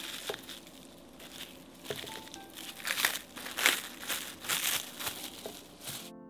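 Crinkling and rustling in irregular bursts, loudest around three to four seconds in, with faint background music underneath; it stops just before the end.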